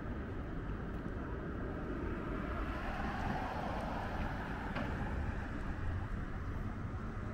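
City road traffic: a steady hum of cars, with one vehicle passing close and swelling then fading about halfway through.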